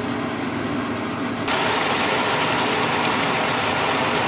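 Marinated beef short ribs (galbi) sizzling and bubbling in their sauce in a hot pan, a steady sizzle that grows louder about a second and a half in.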